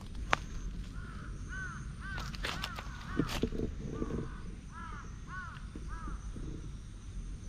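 A crow cawing in short runs of quick, arched calls, repeated several times, with a few footsteps.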